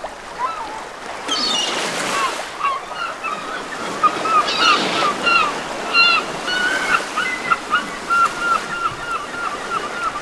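Sea waves washing on a shore with birds calling over them. The calls become a quick, even run of short repeated calls, about three a second, in the second half.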